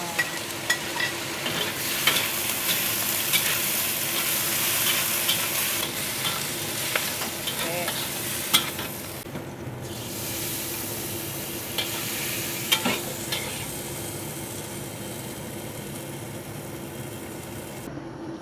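A pork and vegetable stir-fry sizzling in a hot pan, with a stirring utensil repeatedly scraping and clicking against the metal. The sizzle cuts off just before the end.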